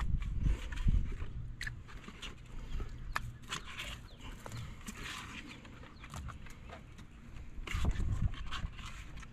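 Croaker heads and guts being tipped from a plastic bucket into a crab trap's wire bait cage: scattered wet slaps and small clicks, with low rumbles near the start and again about eight seconds in.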